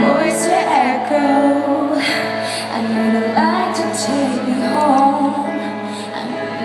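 Live pop ballad: a woman singing with held, gliding notes over sustained instrumental chords.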